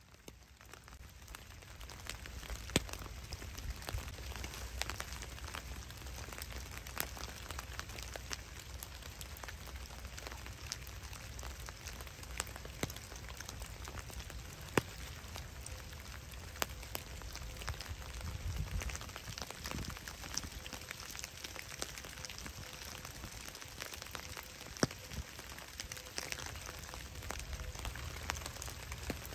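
Steady rain falling in woodland: an even hiss with scattered sharp ticks of single drops.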